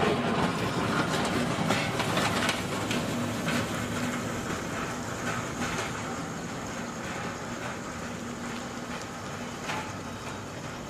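Electric hydraulic pump motor of a semi-electric scissor high-lift pallet truck running with a steady hum as it lifts, cutting out about two and a half seconds in. Irregular clicks and rattles from the truck's mechanism follow.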